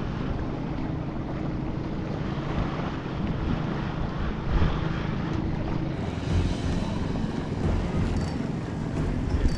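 Wind buffeting the microphone on a small boat at sea, over a steady wash of water and waves.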